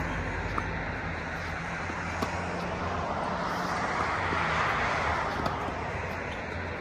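Steady outdoor engine and traffic rumble that swells for a couple of seconds in the middle. A few faint, sharp tennis-ball strikes off racket strings are heard during the rally.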